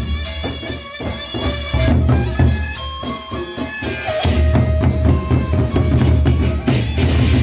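Gendang beleq ensemble of large Sasak barrel drums beaten with sticks in a fast, driving interlocking rhythm, with sustained ringing higher notes over the deep drum strokes. The sound thins briefly, then grows fuller about four seconds in.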